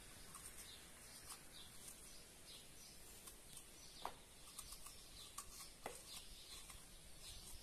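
Faint scraping and light clicks of a metal corer hollowing out a zucchini, with a couple of sharper taps about four and six seconds in as the corer knocks against the plastic bowl. Faint bird chirps sound in the background.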